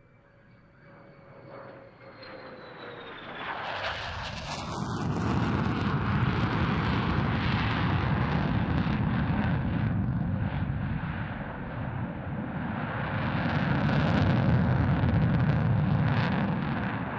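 F-35B Lightning's Pratt & Whitney F135 jet engine in a flying display. Faint at first, with a thin whistle falling in pitch, it builds over about four seconds to a loud, rumbling jet noise that stays loud and swells again near the end as the aircraft pulls steeply up.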